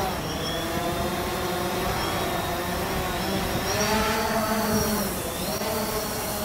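Quadcopter drone taking off and climbing, its propellers making a multi-toned whine whose pitch rises and falls as the motors change speed, with a swell about four seconds in.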